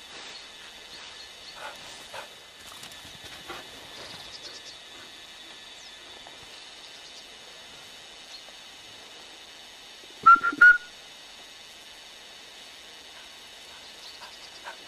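Gundog training whistle blown close to the microphone: three quick, loud, high pips about ten seconds in. Soft scattered clicks and rustles over the first few seconds, over a steady tape hiss.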